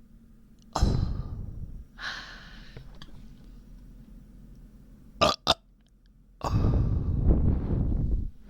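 A person burping from an upset, bloated stomach: one burp about a second in and a longer, loud one near the end, with two short sharp sounds in between.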